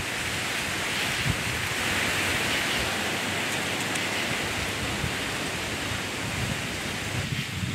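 Wind rustling through the leaves of the trees around a tree stand: a steady hiss, with a few low bumps.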